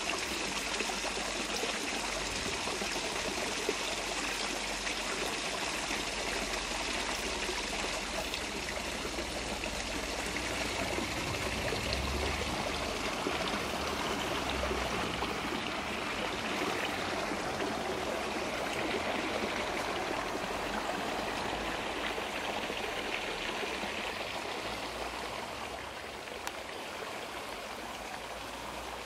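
Steady rush of running water, with no distinct drips or splashes, easing off slightly near the end.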